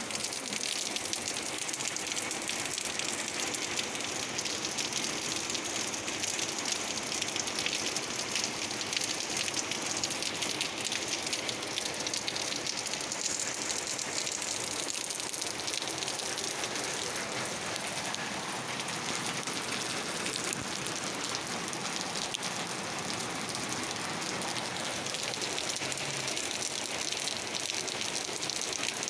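Rain falling steadily, an even hiss of drops on leaves and wet pavement.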